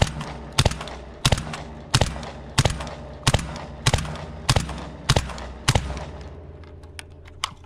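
Ten suppressed 12-gauge shotgun shots from a Black Aces Tactical FD12 semi-auto bullpup with a SilencerCo Salvo 12 suppressor, fired steadily about one and a half a second until the magazine runs empty. A few light clicks follow near the end.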